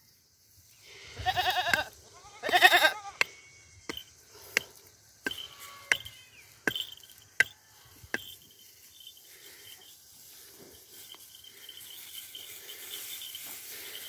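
Young goat bleating twice, two wavering calls about a second apart near the start. A run of sharp clicks follows, about one every 0.7 s, and a steady high insect trill sets in about five seconds in.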